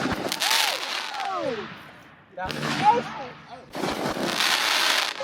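Consumer multi-shot fireworks cake firing, with loud bursts of crackle and bangs in three volleys separated by short gaps.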